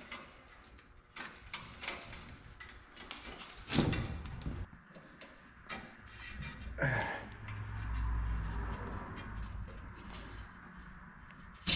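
Scattered clicks and knocks with two louder scrapes, about four and seven seconds in, from hands working wire and fittings up inside an excavator's metal canopy.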